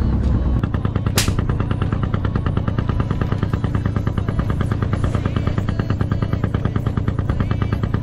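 Boat engine running steadily with a rapid, even chugging pulse; a single sharp click about a second in.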